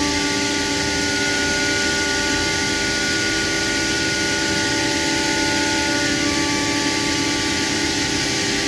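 Anderson CNC machine running: a steady mechanical whine of several held tones over an even rushing noise, with one tone shifting slightly about six seconds in.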